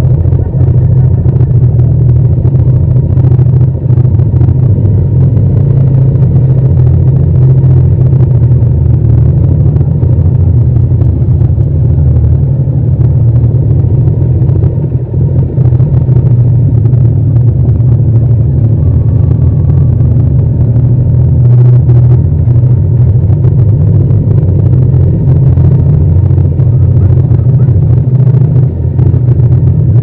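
Yamaha MT-07's parallel-twin engine running steadily at low speed, loud and close with no wind noise, its pitch barely changing.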